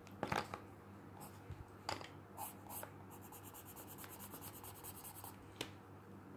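Graphite pencil scratching on textured 100-pound drawing paper: a few separate strokes, then about two seconds of rapid, even back-and-forth shading strokes near the middle.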